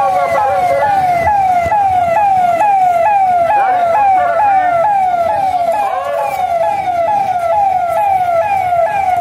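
Police vehicle siren sounding without a break, a loud tone that falls in pitch over and over, about twice a second.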